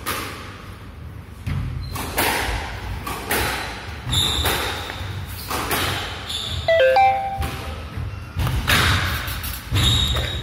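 Squash rally: the ball cracks off rackets and smacks into the court walls about once a second, each hit echoing in the enclosed court. Sneakers give short squeaks on the wooden floor, a quick run of them a little past the middle.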